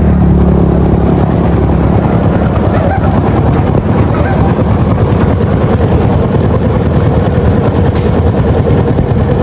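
An engine running steadily at close range, a loud continuous drone.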